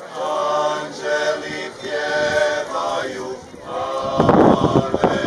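A male klapa group singing a cappella in close harmony, holding sustained chords. About four seconds in, a louder noise close to the microphone cuts across the singing.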